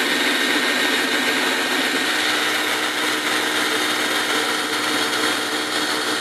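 Old 7.2-volt cordless drill on worn NiCad batteries running steadily under load, spinning a plastic trolling-motor propeller in the water on a length of all-thread: a steady motor whine.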